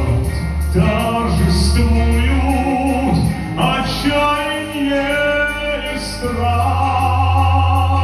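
A man singing slow, long-held notes into a microphone, amplified in a hall, with a deep steady drone beneath.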